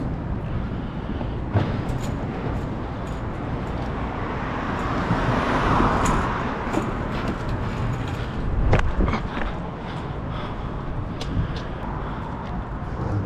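Outdoor city noise: a steady traffic hum that swells for a couple of seconds about five seconds in, like a vehicle going by, with a short heavy knock near the nine-second mark and a few small clicks.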